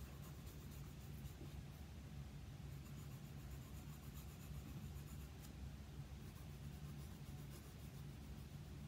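Pencil scratching faintly on paper in repeated short strokes while shading in fur, over a steady low hum.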